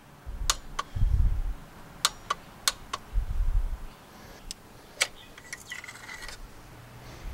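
Hand tools being handled around the engine: a run of sharp, irregular metallic clicks and clinks with a few dull low knocks, as the torque wrench and spark plug socket are worked off the freshly torqued plug.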